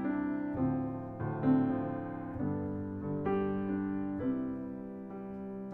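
Grand piano playing a slow instrumental intro of sustained chords, a new chord struck about every second.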